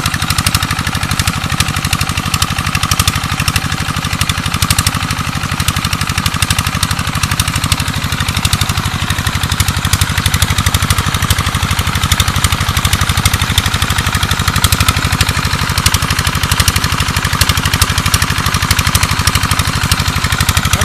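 Single-cylinder 'Peter' diesel engine of a tube-well pump running steadily with a rapid, even knock. Water gushes from the outlet pipe and splashes into a concrete tank.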